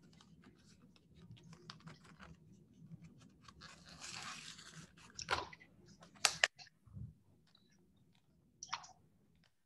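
Faint, scattered clicks and rustling handling noises from an open webinar microphone, with a short hiss about four seconds in and a few sharper clicks soon after.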